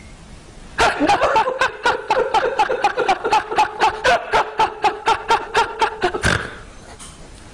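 Men laughing hard: a long run of quick, even 'ha-ha' pulses, about five a second, starting about a second in and breaking off in a gasp of breath about six seconds in.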